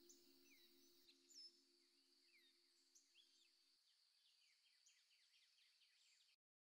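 Near silence: faint background ambience with a thin steady high tone and small scattered chirps, cutting to dead silence near the end.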